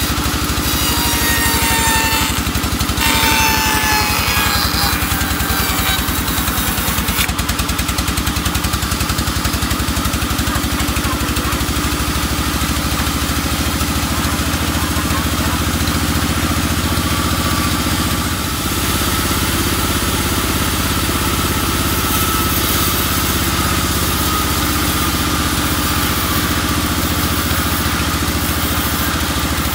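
Engine-driven band sawmill running and cutting through a teak log: a steady engine drone underneath, with a high whine from the blade that falls in pitch over the first few seconds. The drone dips briefly about two-thirds of the way through, then runs on.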